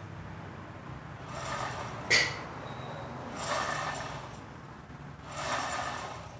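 Mitsubishi Canter 125 truck differential turned by hand, its ring gear and pinion teeth meshing in a gritty whir that swells about every two seconds, with one sharp metallic click about two seconds in. The gear mesh is being checked for the smoothest rotation while the backlash is adjusted.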